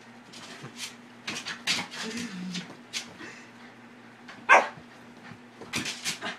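Small dog excitedly yipping and whining in quick short calls as it leaps and snaps at a spot of light on the wall, with one loud bark about four and a half seconds in.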